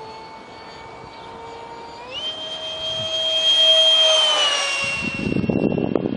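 Detrum 70 mm electric ducted fan of a foam RC flying-wing jet on a 4-cell lipo, whining steadily in flight. About two seconds in its pitch jumps up and it grows louder as the jet passes close, then the pitch eases down. A rough low rumble takes over near the end.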